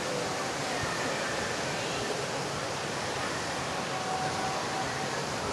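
Steady, unbroken rush of falling water.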